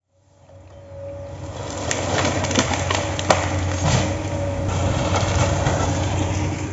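Heavy machine's engine running steadily with a held whine, with several sharp cracks between about two and four seconds in.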